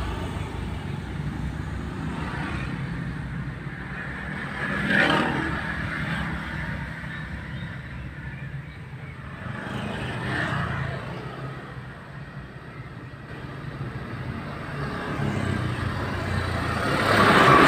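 Car interior with a steady low rumble of engine and road noise while driving. Other vehicles pass close by three times, each swelling up and fading away: about five seconds in, around ten seconds, and loudest near the end.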